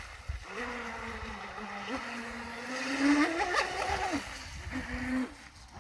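Electric RC speedboat's motor, run on a 3S lipo, whining from across the water, its pitch rising and falling with the throttle and holding steady through a run, then dropping away near the end.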